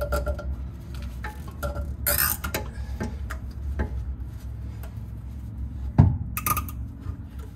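Heavy-duty zip ties being cinched tight by hand, with a short ratcheting zip about two seconds in and another just after six seconds, among scattered clicks and one sharp knock from handling the parts. A steady low hum runs underneath.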